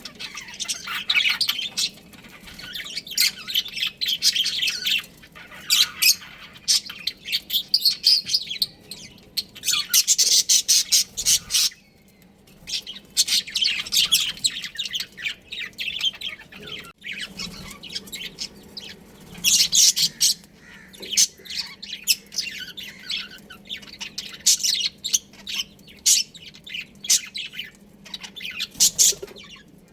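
Budgerigars chattering and chirping in a continuous fast, high-pitched stream of squawks and warbles, with a brief lull about twelve seconds in.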